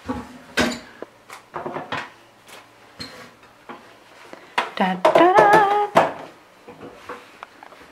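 Metal rice cooker inner pot knocking and clinking as it is handled and set down into the cooker, a series of short sharp strikes. About five seconds in comes a louder, short wordless vocal phrase with a wavering pitch, the loudest sound here.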